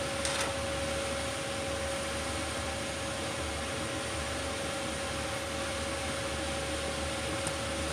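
Steady whir of a fan motor with a constant low hum and a faint steady tone.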